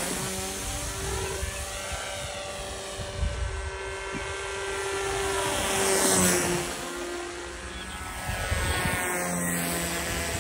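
Motor and propeller of a homemade fixed-wing RC plane in flight, a steady drone that swells and falls away as the plane passes close, loudest about six seconds in.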